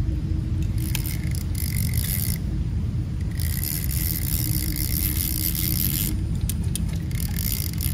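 Fast-flowing water of a rain-swollen stream rushing steadily, heard as a low, even rumble. Over it, high hissy scraping comes and goes twice: briefly about a second in, then for about three seconds from the middle.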